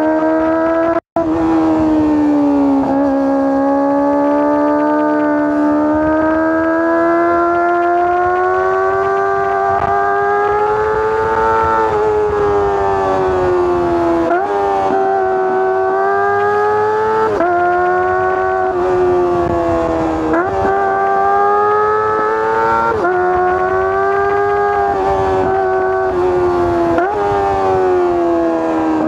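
Kawasaki ZX-25R's 250 cc inline-four engine and exhaust running at high revs while riding: a high, steady wail whose pitch slowly rises and falls, broken by sudden quick pitch changes several times. The sound cuts out for an instant about a second in.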